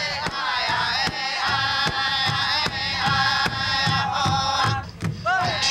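Powwow-style drum and singing: high-pitched chanted song over repeated drum beats, accompanying dancing.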